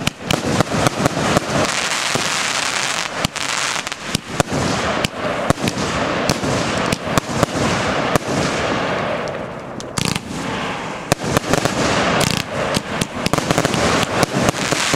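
Heron Professional Powerbox 1 compound firework cake firing: a rapid, continuous run of shots and bursts over dense crackling, thinning briefly about nine seconds in before the bangs pick up again.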